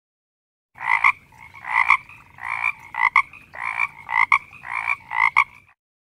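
A frog croaking: a steady series of about eight short, rasping calls, roughly one and a half per second, starting and stopping abruptly.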